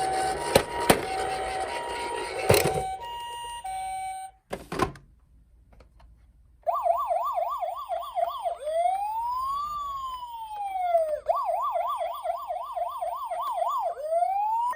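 Toy emergency-vehicle sirens. First a two-tone hi-lo ambulance siren with a few sharp knocks and a thump, then a short pause. Then a police-style electronic siren that alternates a fast yelp with a slower wail that rises and falls.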